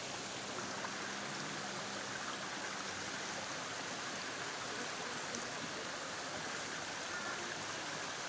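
Hot-spring stream water running over rocks, a steady even rush with no breaks.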